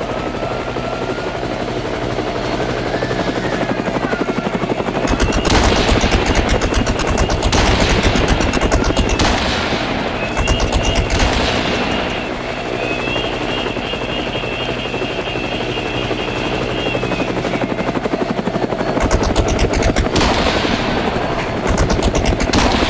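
Toy helicopter running: a steady whir with stretches of rapid rattling about five seconds in and again near the end, and a high warbling tone in the middle.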